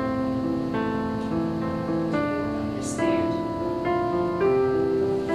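Background piano music: a slow melody of held notes, changing about every half second.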